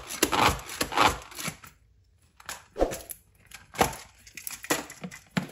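Manual plunger food chopper chopping onions: the handle is pumped in quick strokes, the blades crunching through the onion. After a short pause, a few single knocks about a second apart.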